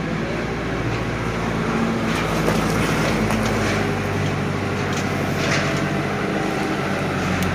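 Diesel engine of a wheeled loader with a bale clamp, running steadily while it lifts bales of plastic bottles.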